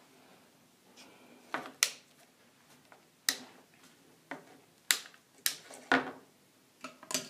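A scattered series of sharp clicks and knocks, irregularly spaced, over a quiet room background.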